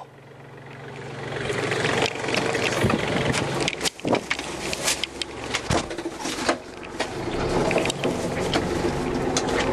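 Iseki Geas NTA340 tractor's diesel engine running, with scattered clicks and knocks. The engine builds up over the first couple of seconds and grows louder again near the end as the tractor pulls away.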